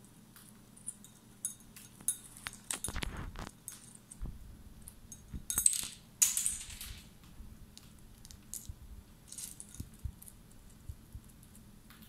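Cockatiels pecking and rummaging in a ceramic bowl of dry food: scattered sharp clicks of beaks and food bits against the bowl, with two louder rattling scrapes about three and six seconds in.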